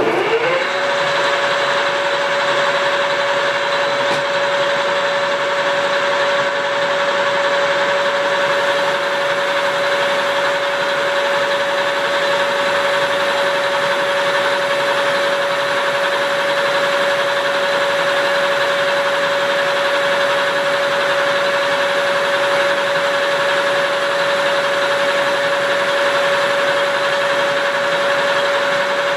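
Metal lathe spinning up over the first second, then running steadily with a constant whine while turning a shaft.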